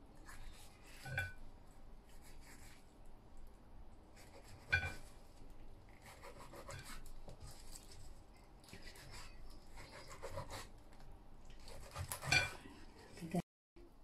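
Knife cutting and scraping along a sea bass's backbone on a wooden cutting board while filleting: soft, irregular scrapes and rubs. Three sharper knocks of the blade come about a second in, near five seconds and near the end, the last the loudest.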